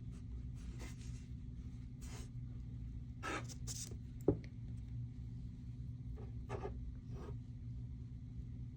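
Paper being worked by hand: a few short scratchy strokes and rubs, scattered a second or so apart, with a single sharp click about four seconds in.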